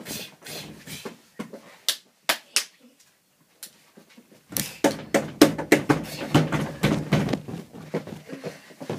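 Hand slaps and scuffling from a play-fight: a string of quick smacks, a short lull about three seconds in, then a dense flurry of hits from about four and a half seconds on.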